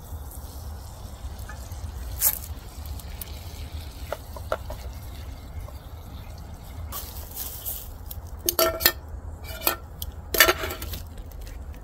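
Liquid poured from a small cup into a hot camp pan of green beans to deglaze it, then stirred, with scattered clinks and knocks of the utensil and cup against the pan. A few sharper clicks and knocks come near the end.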